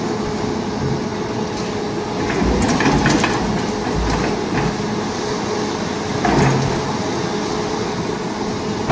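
Doosan crawler excavator's diesel engine running steadily under load while it works a large stone block, with a cluster of sharp knocks about three seconds in and another louder knock a little after six seconds.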